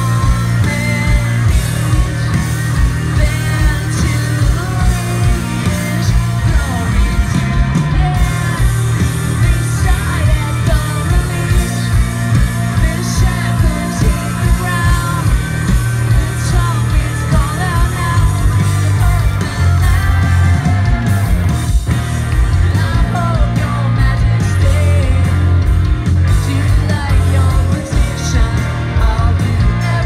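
Live rock band playing: electric guitars, bass and a steady drum beat, with a male lead vocalist singing over them, loud and recorded from within the audience.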